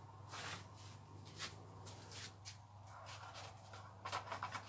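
Faint rustling and scuffing of hands working with a cloth, with a few short scrapes and a quick run of clicks about four seconds in, over a steady low hum.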